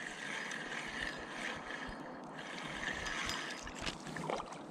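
Spinning reel being cranked against a light water slosh, the whirring easing off about three and a half seconds in as a small rainbow trout is drawn to the surface and splashes beside the boat.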